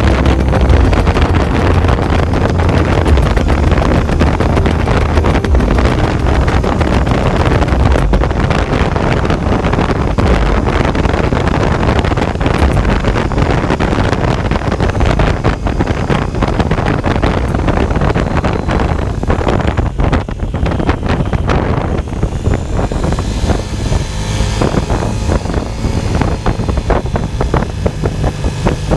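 KTM 890 Adventure's parallel-twin engine running while riding, with heavy wind buffeting on the microphone. The low rumble eases about three quarters of the way through.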